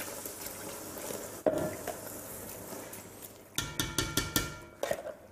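Pan of browned beef mince with water going in, making a steady hiss, then a quick run of metallic clinks and taps of a utensil against the pan about three and a half seconds in.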